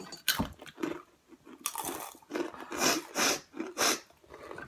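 Crunching and chewing of spicy corn chips, in a string of irregular crunchy bursts.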